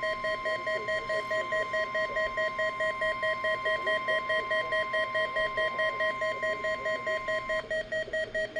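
NOAA Weather Radio's steady 1050 Hz warning alarm tone, sent as a weekly test, cutting off suddenly about three-quarters of the way through. Under it, a weather-alert receiver's buzzer beeps about four times a second and keeps going.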